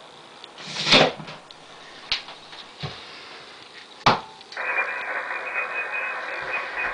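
Rustling knocks and a few sharp clicks of the handheld camera being moved, the loudest about a second in and about four seconds in. Then a steady hiss of static comes from the ham radio transceiver's receiver and runs on.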